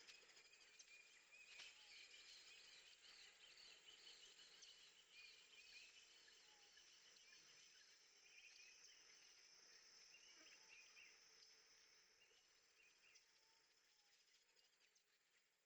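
Near silence: faint outdoor ambience with small birds chirping and a steady high insect-like hiss, growing fainter near the end.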